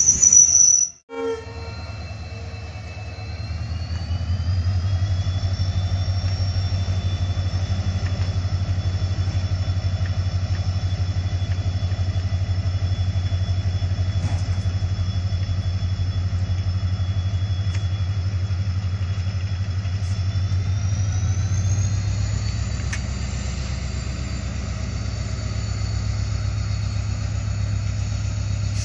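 Passenger train pulling out of the station, its locomotive's engine running with a steady low drone and a high whine that rises in pitch twice, about three seconds in and again about twenty-one seconds in, as it powers up. It opens with a short loud blast that is cut off.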